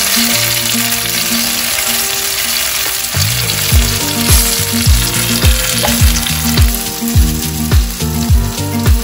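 Whole pearl onions and green peppers sizzling as they sear in a hot frying pan. Background music plays over it, with a deep regular beat coming in about three seconds in, a little under two beats a second.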